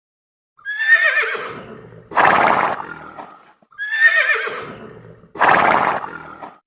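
Horse whinnying twice, each time a high, quavering neigh followed by a short breathy blow.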